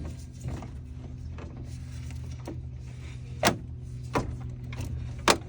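Channel-lock pliers clicking and slipping on a radiator hose clamp as they fail to catch and hold it: several sharp metallic clicks, the loudest three in the second half, over a steady low hum.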